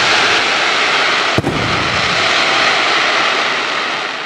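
Aerial firework shells bursting overhead: a loud, dense, steady hiss of burning stars, with one sharp bang about a second and a half in.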